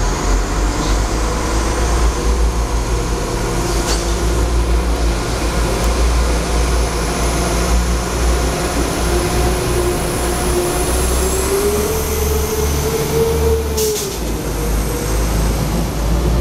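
Class 172 Turbostar diesel multiple unit pulling away past the platform: a steady low diesel rumble with a whine that climbs in pitch and drops out about fourteen seconds in, and two sharp clicks from the wheels.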